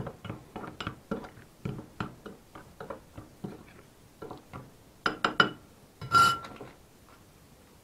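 Metal spoon stirring dry flan powder and sugar in a cut-glass bowl, tapping and scraping against the glass a few times a second, fading off. About five seconds in come a few clinks, then a single ringing clink of metal on glass just after six seconds as the spoon is put down.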